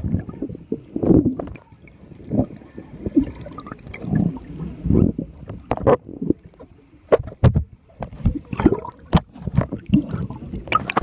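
Muffled underwater gurgling and sloshing around a submerged camera, broken by irregular knocks and clicks.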